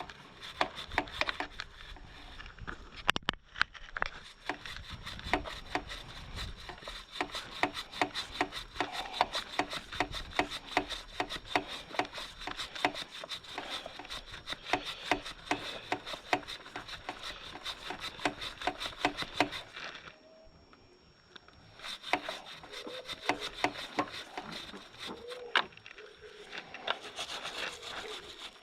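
Stiff-bristled brush scrubbing a motorcycle drive chain in quick, rhythmic strokes, working the chain cleaner in to loosen built-up gunk. The scrubbing stops for about two seconds about two-thirds of the way through, then starts again.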